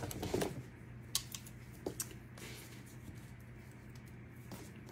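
A few light clicks and rustles of hands handling artificial berry stems and leaves on a craft board, mostly in the first two seconds, over a faint low steady hum.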